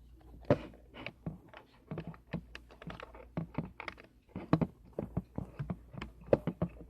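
Irregular light clicks, taps and knocks, several a second, from small objects being handled and set against each other.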